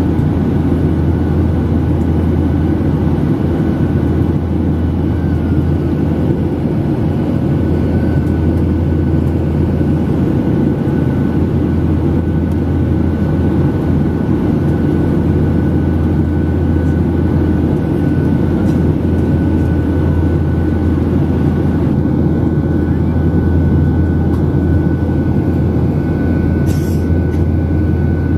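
Steady cabin drone of a Boeing 737 airliner in flight: engine and airflow noise heard from a window seat, with a faint steady whine above it. A brief click near the end.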